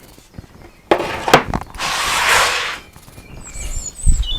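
Workshop handling noises: two sharp knocks about a second in, a rasping slide lasting about a second, and a low thud near the end, as tools and wooden pieces are moved about.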